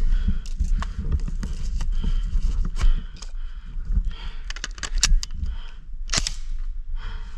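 Airsoft gun shots: sharp snapping pops scattered through, with a quick run of them about five seconds in and a loud single crack about a second later. Underneath, dry leaves crunch underfoot as the player moves.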